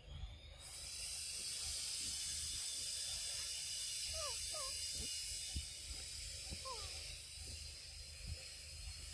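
A high, steady insect drone that starts abruptly just under a second in, with a few short falling chirps over it near the middle.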